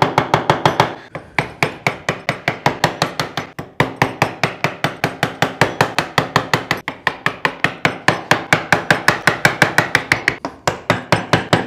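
A mallet striking a medium wood chisel in quick, even blows, several a second, with a brief pause every few seconds. The chisel is chopping waste wood out of a board.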